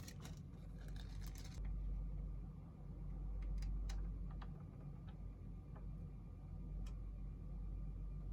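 Packaging of a 1/64 diecast bus model rustling and crinkling for about a second and a half, then a few scattered light clicks and taps as the model and its packaging are handled, over a steady low hum.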